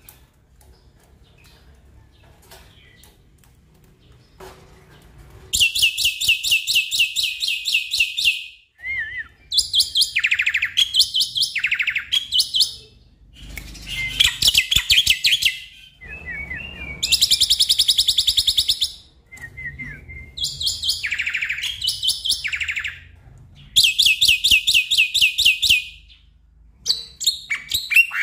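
Black-winged myna (jalak putih) singing. About five seconds in it starts repeated bouts of fast rattling trills, each two to three seconds long, with short lower whistled notes between them.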